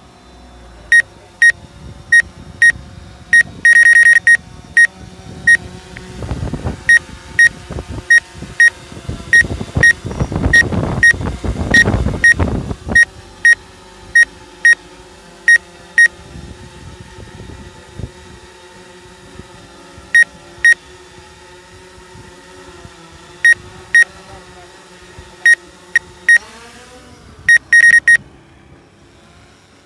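Repeated short electronic beeps, loud and unevenly spaced about half a second apart, with quick runs of beeps around four seconds in and again near the end. A louder rushing noise swells and fades between about six and thirteen seconds.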